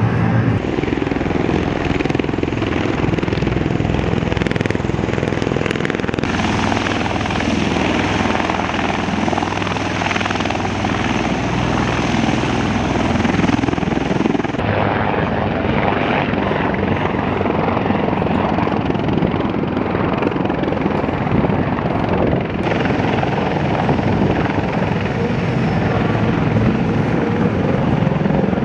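Loud, steady rotor and turbine noise from Marine Corps military aircraft: an MV-22 Osprey tiltrotor running on the ground, and a CH-53 heavy-lift helicopter hovering. The sound changes abruptly at a few cuts.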